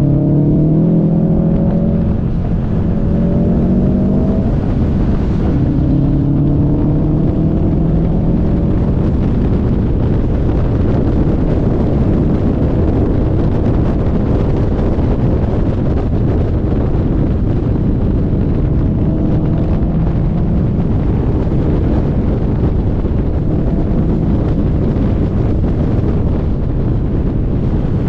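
Car engine pulling up through rising revs several times in the first ten seconds or so, then running under steady engine, tyre and wind noise.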